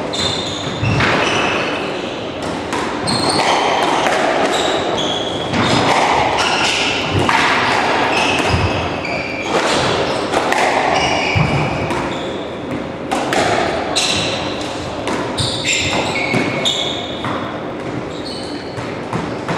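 Squash rally on a wooden court: the ball cracking off rackets and the walls, players' shoes squeaking sharply on the floorboards, and running footsteps.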